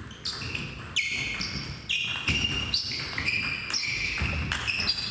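Table tennis rally: the ball clicking sharply against the bats and the table in quick succession, about two strikes a second.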